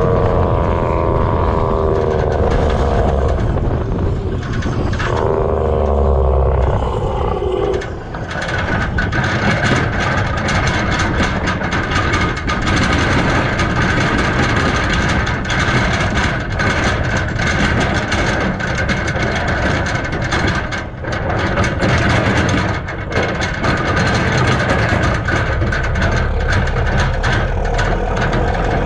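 Mack CH613 semi-tractor towing an empty flatbed trailer down the road. For the first eight seconds or so the engine pulls through the gears, its note breaking twice. After that it is a steady rush of wind and road noise with the trailer deck rattling.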